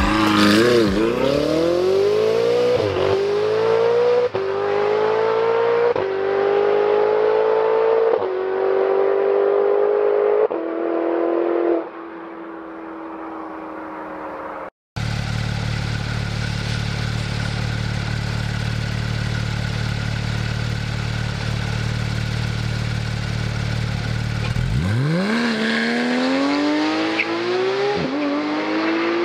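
Ferrari 488 GTB's twin-turbo V8 accelerating hard away, its note climbing and dropping through about five quick upshifts, then fading into the distance. After a cut, a Porsche 911 GT3's flat-six idles steadily for several seconds, then launches and climbs through two upshifts near the end.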